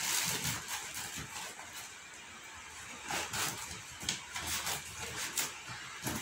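Rustling and scraping of plastic wrap, foam packing and a cardboard TV box being handled, with scattered short crinkles and knocks.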